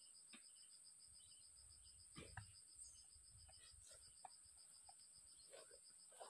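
Faint insect chorus: a steady high-pitched buzz with a quick, regular pulsing chirp underneath. A low rumble and a few faint clicks come in and out, the loudest about two and a half seconds in.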